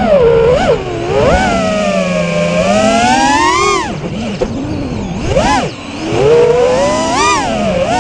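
Brushless motors and propellers of an Armattan Rooster FPV freestyle quadcopter on a 4S battery, heard from its onboard camera, whining as the pilot works the throttle. The pitch sweeps up and down constantly, climbing to a high peak and then dropping sharply partway through, with quick punches up and down in the second half.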